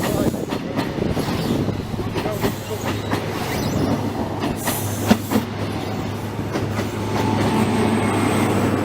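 Train running past on the rails, with a steady hum under a rumbling rattle and irregular sharp clicks of wheels over rail joints.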